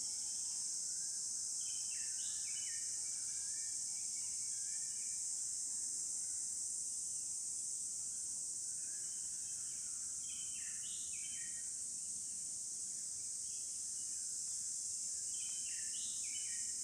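Steady high-pitched insect chorus, with birds chirping in three short spells.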